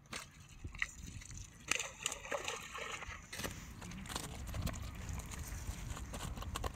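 Water splashing and sloshing irregularly, with scattered sharp clicks and splats, starting abruptly.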